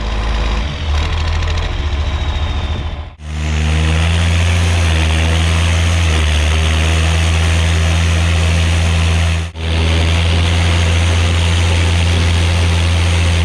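John Deere tractor's diesel engine heard close at its vertical exhaust stack, running steadily with a deep, even exhaust note. The sound breaks off briefly about three seconds in and again about nine and a half seconds in.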